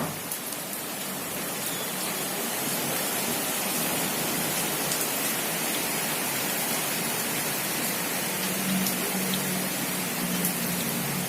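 Heavy tropical rain pouring down steadily, a dense hiss with individual drop impacts ticking through it. A faint low hum joins in near the end.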